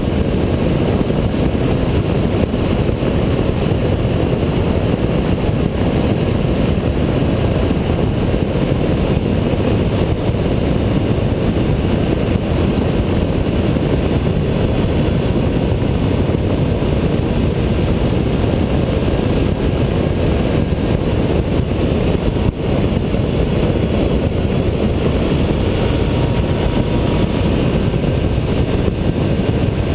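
Honda ST1300 touring motorcycle's V4 engine running at a steady cruise, mixed with tyre roar and wind buffeting the bike-mounted microphone as one loud, unbroken rumble.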